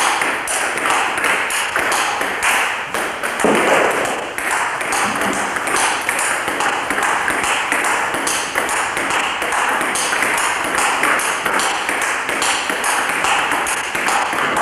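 Table tennis rally: the celluloid ball clicks off the bats and the table about three times a second, in a steady back-and-forth rhythm, over an even hiss.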